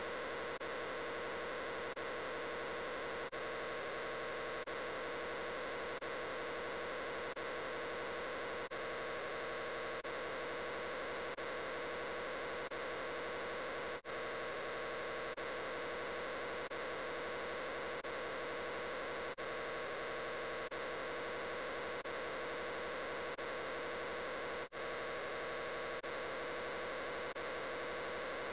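A steady, dense wall of hum-like noise from the 'I'm Peppa Pig' voice clip layered over itself so many times that no words can be made out, broken by very brief dropouts.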